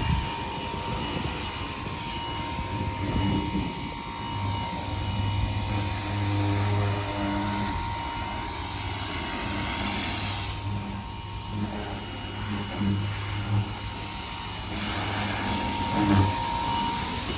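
Car wash pressure washer running, with a steady high whine and a low motor hum that drops out and returns a few times, over the hiss of water spraying.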